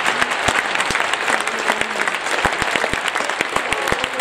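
Stadium crowd applauding: many hands clapping in a dense, steady patter.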